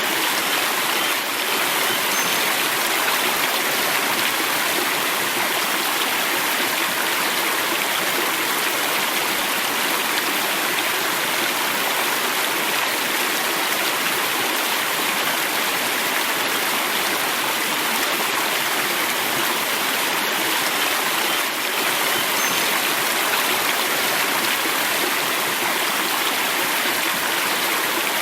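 River water flowing, a steady rushing and babbling stream.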